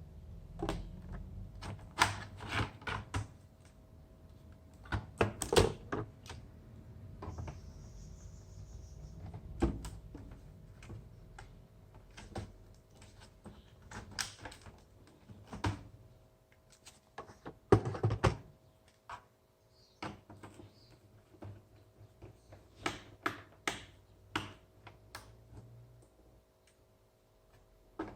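Irregular clicks and light knocks of hands working on a laptop, with a few louder knocks. A faint steady hum runs underneath.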